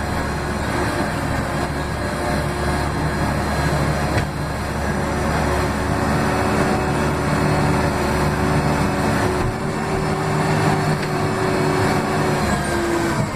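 Case 580M backhoe loader's diesel engine running hard at high throttle, heard from inside the cab close to the accelerator. The engine note holds steady, then shifts a little about two-thirds of the way through and again near the end as the load changes.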